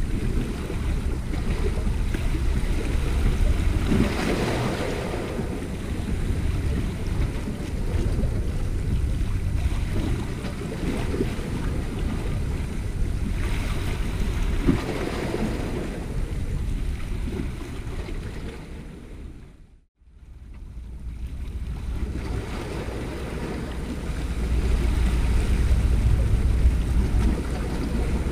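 Wind buffeting the microphone over sea waves washing against shoreline rocks, the wash surging up twice. The sound fades to silence for a moment about two-thirds of the way through, then fades back in.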